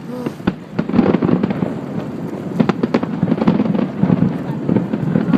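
Fireworks display going off in a rapid, continuous barrage of bangs and crackles, growing denser about a second in.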